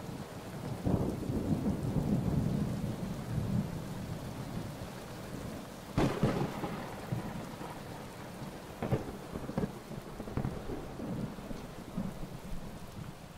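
Rain falling steadily on open water during a thunderstorm, with rolling thunder in the first few seconds and a sharp thunderclap about six seconds in, followed by a few smaller cracks as it slowly dies down.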